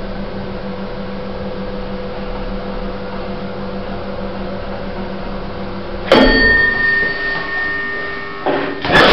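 A 1980s lift car travelling with a steady electrical hum. About six seconds in, a loud chime rings and fades. Near the end comes a clunk, followed by a loud rattling mechanical noise.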